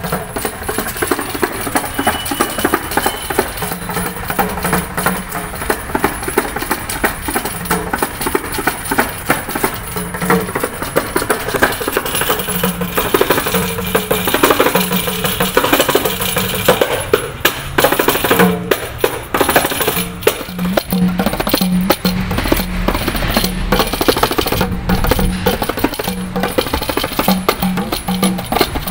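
Kanjira, the small South Indian frame drum with a single pair of jingles, played solo with the fingers. Fast, dense strokes, with the jingles shaking, and short low ringing notes that come and go through the phrases.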